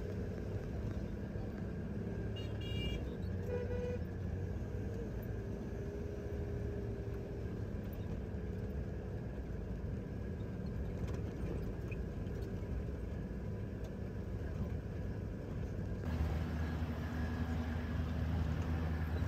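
Steady engine and tyre drone heard from inside an off-road vehicle driving on an unpaved gravel road, with a brief horn toot about three seconds in. About sixteen seconds in the drone changes suddenly, becoming lower and a little louder.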